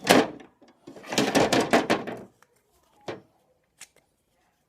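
Metal pliers clattering and scraping inside a cardboard firework tube while trying to grip an explosive cap deep inside. A sharp rattle at the start, a quick run of clicks and rattles about a second in, and a single knock about three seconds in.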